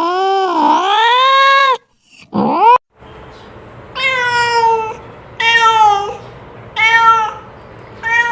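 Domestic cat meowing: a long, drawn-out meow that dips and rises in pitch, a short meow, then four shorter meows about a second and a half apart.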